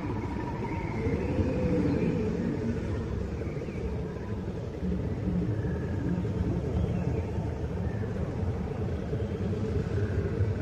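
A deep, steady rumbling drone with faint wavering whistle-like tones drifting above it: a 'sound of space' ambient recording, which the uploader presents as a spacecraft's electromagnetic signals converted into audible sound.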